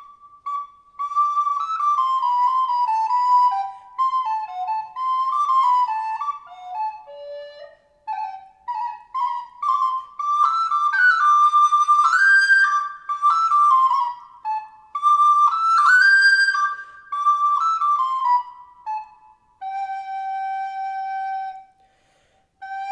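A solo flute plays a slow improvised melody on Christmas carols: one clear line of notes in phrases, with short breaks between them and a long low note held near the end.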